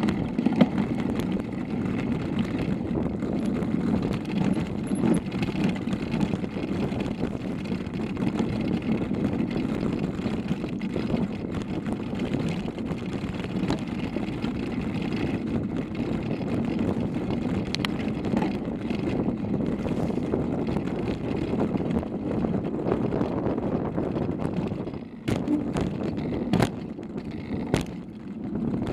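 Mountain bike rolling fast downhill over a rough gravel trail: steady tyre rumble and frame and handlebar rattle, picked up through a bike-mounted camera. There are a few sharp knocks near the end.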